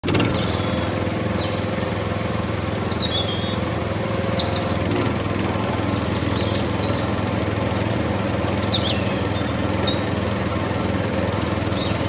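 Small electric motor and gears of a battery-powered toy tractor running with a steady hum as it drives over dirt, with birds chirping several times.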